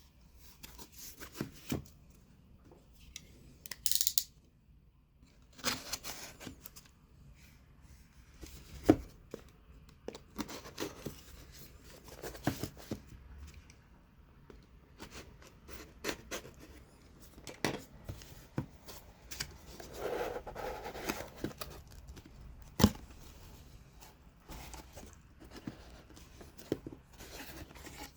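A watch's packaging being handled and opened: scattered rustling and tearing with sharp clicks and knocks at irregular intervals.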